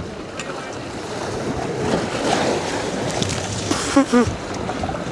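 Wind and waves washing around an open fishing boat at sea, a steady rushing noise that swells about two seconds in. A short voice call cuts through just after four seconds.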